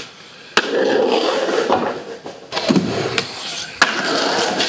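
Skateboard wheels rolling on asphalt, with a sharp clack of the board about half a second in and another near the end.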